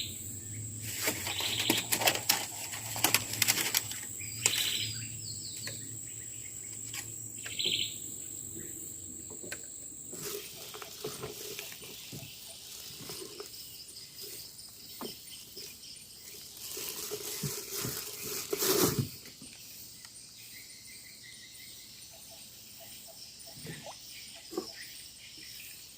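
Riverside forest ambience: a steady high insect drone that cuts off about ten seconds in, birds chirping, and scattered knocks and rustles from handling fishing gear, with a louder rustle near the end.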